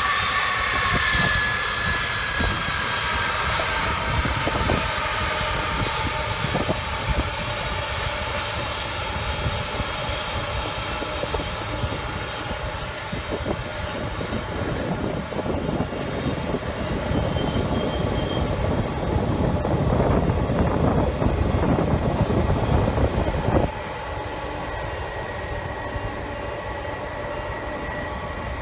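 Four turbofan engines of a Boeing 747 Dreamlifter cargo jet running at taxi power: a steady jet rumble with turbine whine, a high whine falling in pitch in the first couple of seconds. The noise grows louder toward the end, then drops suddenly about five seconds before the end.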